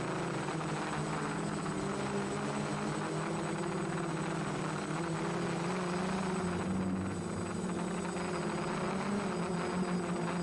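F450 quadcopter's four brushless motors (Turnigy 2830-11 1000KV) and propellers buzzing steadily in flight, the pitch drifting slightly with throttle changes around the middle.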